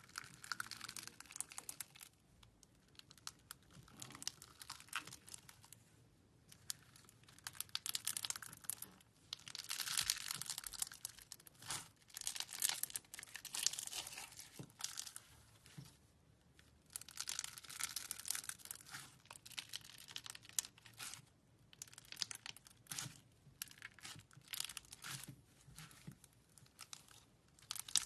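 Slime squeezed and worked in the hands, giving quiet bursts of crackling and popping. Each burst lasts a second or two, with short pauses between.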